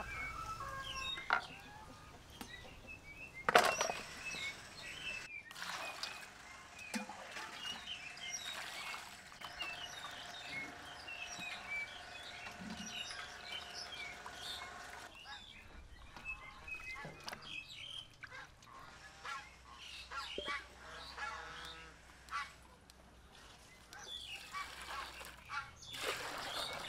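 Birds chirping and calling throughout. Water splashes as chicken feet are rubbed clean in a metal bowl, and near the end water is poured into a metal pot.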